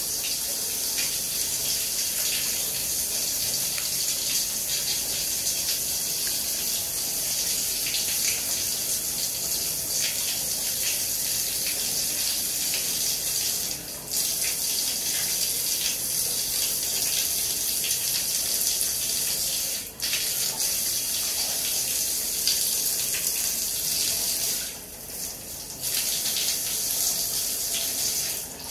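Shower running: a steady hiss of spraying water, dipping briefly three or four times.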